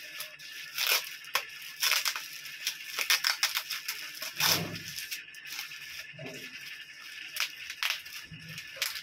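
Plastic packaging wrap crinkling and tearing as it is pulled open by hand, in a run of irregular sharp crackles.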